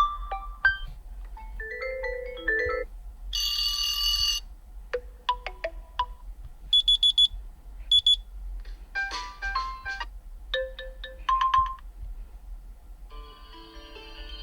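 OnePlus 11 default ringtones and system tones played in quick succession: about nine short electronic melodies and chimes, each lasting around a second, with brief gaps between them.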